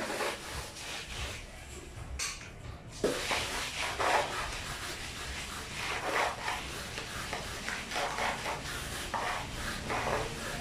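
A hand plastering tool scraping and rubbing fresh cement render on a concrete stair step, in repeated uneven strokes, with a quieter pause about one to three seconds in.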